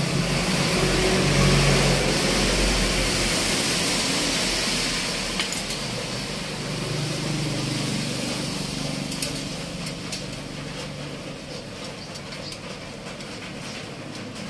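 A motor vehicle engine running steadily, loudest in the first few seconds and then slowly fading. A few light metallic clicks come from spokes and nipples being handled against the steel rim.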